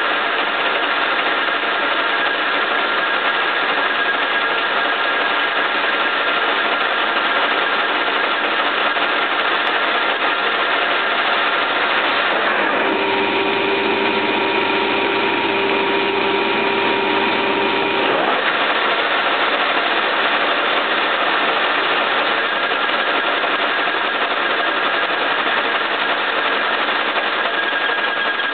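1K62 engine lathe running at about 300 rpm, turning a workpiece bolted to its faceplate with a cutting insert: a steady, even machine noise. For about five seconds in the middle the sound changes to a steadier whine.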